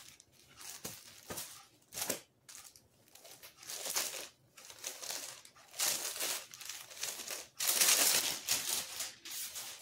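A dola silk saree being unfolded by hand: irregular rustling of the fabric and crinkling of the white packing sheet folded inside it. The rustling is loudest near the end, as the sheet is lifted away.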